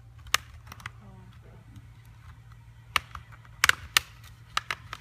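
A series of sharp clicks and taps from handling a tablet's plastic housing during disassembly: one early, then a quick cluster of five or six near the end, over a steady low hum.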